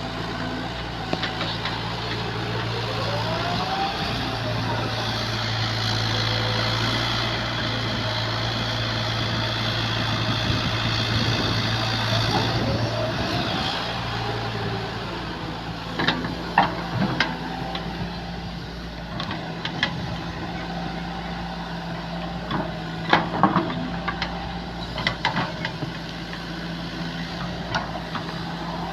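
Backhoe loader's diesel engine running steadily. A high whine rises over it for several seconds in the first half, and a few sharp clanks come in the second half.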